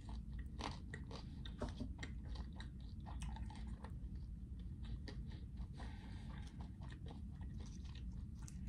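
A person chewing chicken nuggets close to the microphone: many small, irregular crunching clicks over a steady low hum.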